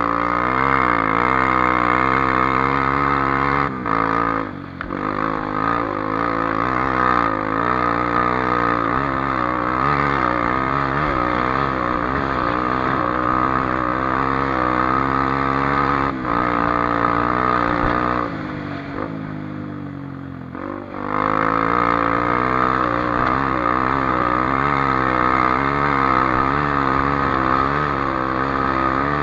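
Honda XR250 Tornado's single-cylinder four-stroke engine being ridden off-road, revs rising and falling constantly with the throttle. It eases off briefly about four seconds in, and again for a few seconds past the middle, before pulling back up.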